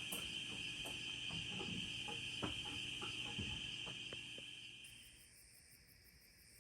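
Steady high-pitched chorus of insects, with a few faint clicks scattered through it. The chorus fades out about five seconds in.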